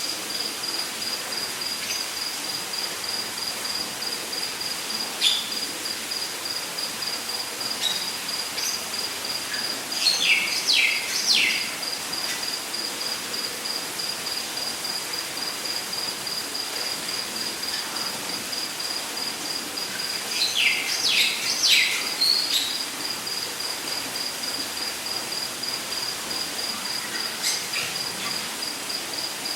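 Rainforest ambience: an insect, cricket-like, trilling steadily on one high pulsing note over a steady background hiss. A bird calls twice, about ten seconds apart, each time a quick run of three or four falling whistles, with a few short single chirps between.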